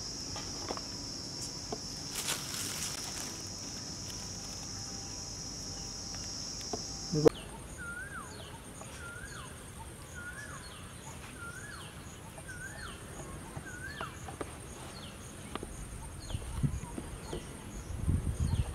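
Outdoor ambience: a steady high insect buzz, cut off by a sharp click about seven seconds in, after which a bird repeats the same short rising-and-falling call about once a second for several seconds.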